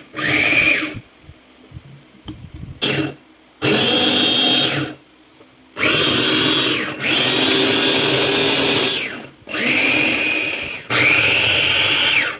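Electric food processor with a glass bowl chopping cabbage, run in about five short pulses of one to three seconds each. Each pulse is a motor whine that rises as the blade spins up and falls away as it stops.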